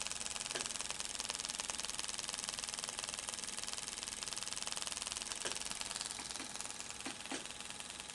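Homemade single-coil pulse motor, rebuilt from a shaded-pole motor with a Z-shaped rotor, running steadily. Its brush commutator contacts make a fast, even buzz of rapid clicks.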